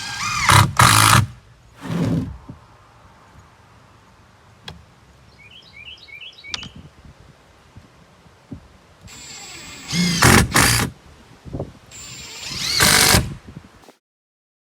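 Power drill driving screws into lumber in four separate runs, the motor pitch rising and falling with each: a longer run at the start, a short one about two seconds in, and two more near the end.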